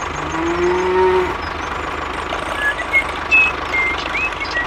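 An engine running steadily with a low, even pulse. A short, low drawn-out tone sounds about half a second in, and several short, high chirps come in the second half.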